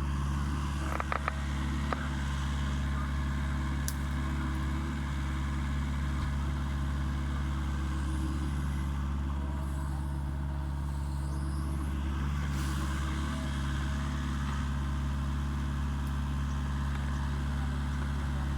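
Mini excavator's diesel engine running steadily at a constant pitch, with a few short clicks about a second in.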